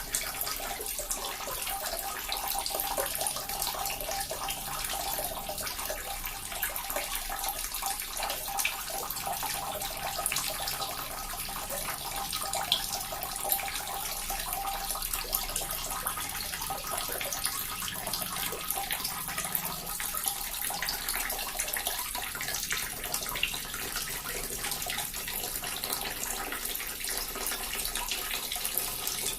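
Small water fountain running steadily: water trickling and splashing, with fine irregular drips and spatters.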